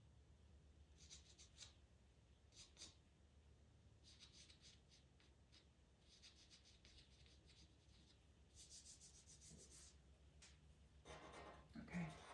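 Faint scratchy strokes of a white pastel pencil on pastel mat paper, in short bursts with pauses between, sometimes several quick strokes in a row.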